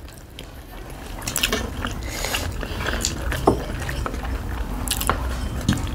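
Close-up eating sounds: chewing and mouth smacking, with fingers mixing rice and pork on steel plates, in a run of small irregular clicks.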